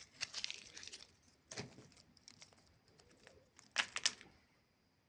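Candy wrapper crinkling and rustling in short bursts, with scattered small ticks; the loudest crinkles come about four seconds in, then it goes quiet.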